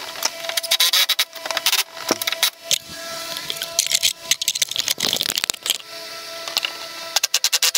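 A cordless power tool runs in short, rapid clattering bursts as the strut bar's nuts are run down and snugged. Between the bursts, metal parts and tools clink and rattle.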